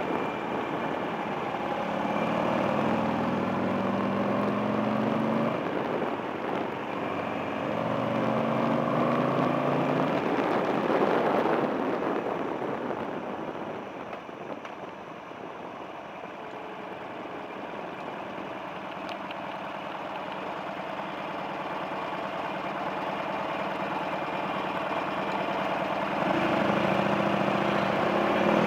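Buell XB9SX's air-cooled V-twin engine heard from the bike while riding. It revs up twice, each time breaking off in a shift about five and eleven seconds in, then eases to a lower, steadier run before pulling again near the end. A rush of wind noise sits under the engine throughout.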